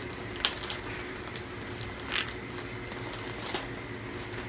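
Plastic poly mailer bag being torn open by hand and crinkled, with a sharp snap about half a second in and another crackle around two seconds in.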